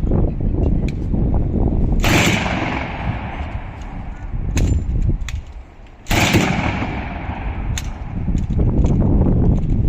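A machine gun firing blank rounds: two loud reports about four seconds apart, each trailing off in a long echo.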